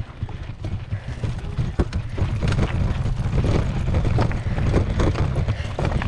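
Mountain bike rattling and clattering over rocky dirt singletrack, with a steady rumble of wind on the helmet or bike camera's microphone. It gets louder over the first couple of seconds as the bike picks up speed downhill.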